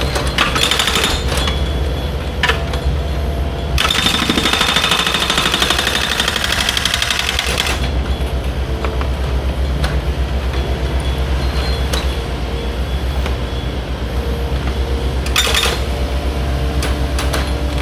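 Heavy machinery engine running steadily with a fast, even mechanical clatter, like a jackhammer. The clatter turns harsher and louder for a few seconds about four seconds in, and again briefly near the end.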